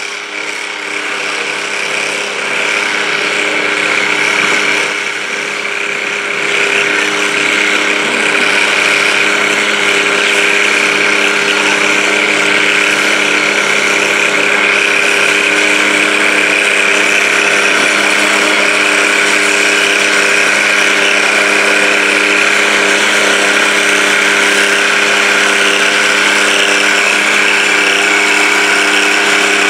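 Diesel garden tractor engine running steadily under load as it pulls a weighted stoneboat sled, getting a little louder over the first few seconds and then holding an even pitch.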